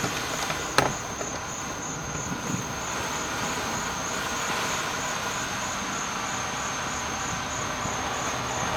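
A sharp crack about a second in, then the steady, slowly swelling hiss of a ground fountain firework spraying. Insects chirp steadily in the background.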